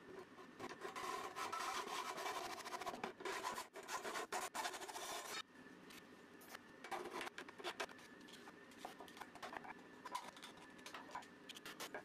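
Handsaw cutting through a T-track strip with fast back-and-forth rasping strokes that stop abruptly about five seconds in; fainter, sparser scraping strokes follow.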